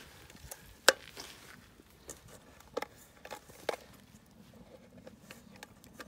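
A few scattered knocks and clinks of a metal skimmer against a cast-iron kazan, the loudest about a second in, then a small cluster around three to four seconds in.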